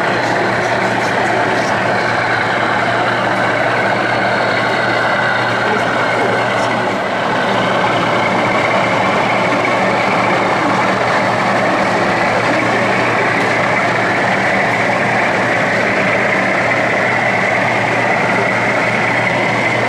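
A steady engine-like running sound with a constant low hum, level throughout, over a background of many voices.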